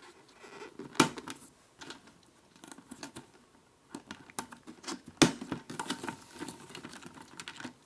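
Hard plastic parts of a Beyblade Destroyer Dome toy stadium, its clear dome and clip-on clamps, being handled and snapped together: several sharp clicks and knocks, the loudest about five seconds in, with light rubbing and tapping between.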